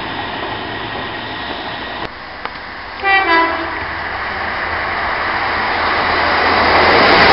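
Passenger train sounding two short horn blasts about three seconds in, then its running noise growing steadily louder as it approaches and runs into the platform.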